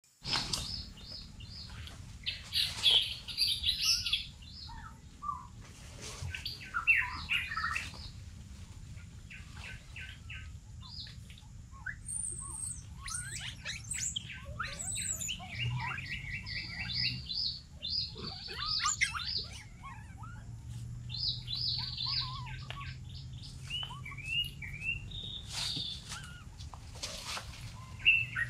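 Several birds chirping and calling, many short chirps and trills one after another, over a faint low steady hum.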